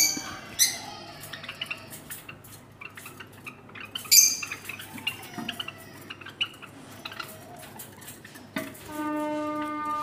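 Java sparrows chirping in an aviary: sharp high calls at the start and again about four seconds in, with scattered small metallic clicks and chirps between. A steady pitched tone, like a distant horn, comes in near the end.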